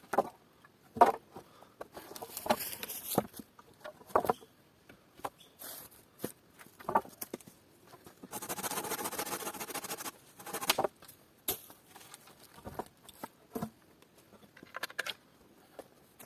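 Irregular knocks, taps and clicks from hands working with wood and stone while building a shelter, with a steady rasping scrape lasting about two seconds in the middle.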